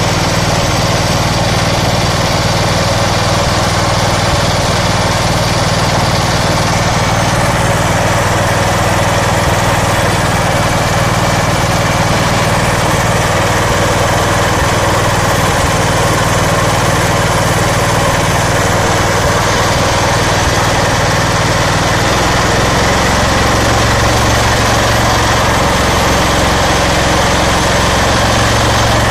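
17 HP GX420SL-LPG single-cylinder four-stroke engine running steadily on LPG, its note shifting slightly about three-quarters of the way through.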